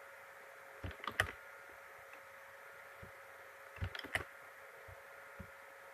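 Computer mouse and keyboard clicks as text is copied and pasted: a quick cluster of clicks about a second in and another about four seconds in, with a few single faint clicks, over a faint steady hum.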